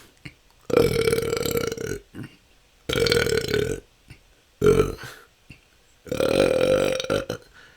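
A person belching repeatedly, natural unforced burps: four in a row with short gaps, the first (about a second in) and the last (around six seconds in) long and drawn out, the two between shorter, each with a low croaking pitch.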